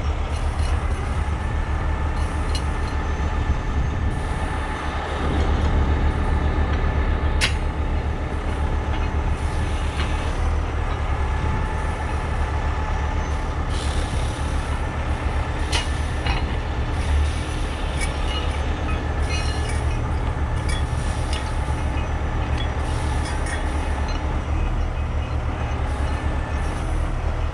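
Diesel engine of a 50-ton rotator tow truck running steadily with a deep drone, powering the boom while it holds a load. A few sharp clicks come through it, one at about seven seconds and two more a little past the middle.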